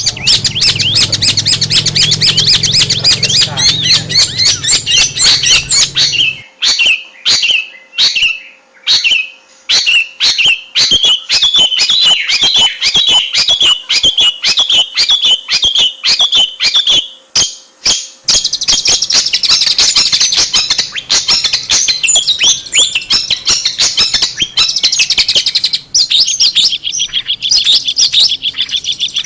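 Long-tailed shrike singing a fast, chattering song of rapidly repeated notes, with short breaks between phrases in the middle stretch.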